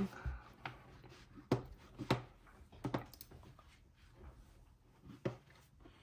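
Melgeek Pixel mechanical keyboard with Melgeek's own Pixel T tactile, non-clicky switches being typed on at random: irregular, scattered keystroke clacks, some in quick pairs, the loudest about one and a half and five seconds in.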